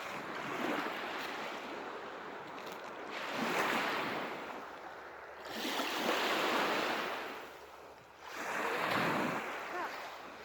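Lake waves breaking and washing up the beach: three surges about three seconds apart, each swelling and then fading.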